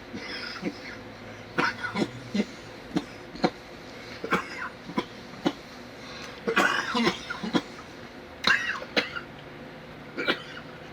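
A man coughing and clearing his throat in repeated short, sharp fits, some in quick clusters, after a mouthful of wasabi.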